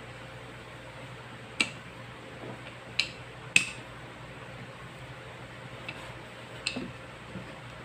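Wooden rolling pin rolling pie-crust dough on a plastic chopping board, giving a few sharp clicks and knocks: three loud ones between about one and a half and four seconds in, then a couple of fainter ones. A steady low hum runs underneath.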